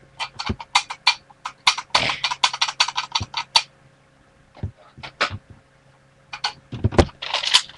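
Quick runs of plastic clicking and rattling from a Nerf dart blaster being handled and primed, densest about two seconds in, with a few more bursts of clicks near the end.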